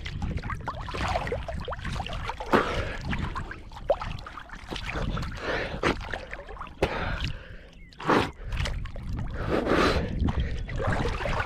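River water splashing and sloshing right against the microphone as a person swims through the water, in uneven strokes with a louder splash about eight seconds in.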